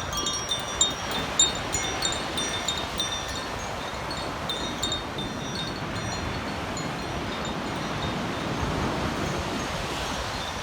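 Koshi chimes ringing: the clapper inside the bamboo tube strikes its tuned metal rods in a quick, clustered run of bright tones during the first half, and the run thins out toward the end. A steady rush of wind on the microphone and surf lies underneath.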